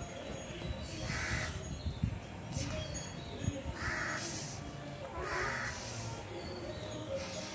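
A toddler blowing puffs of breath into a rubber balloon. Three harsh bird calls of about half a second each sound over it, the first about a second in and two more around the middle.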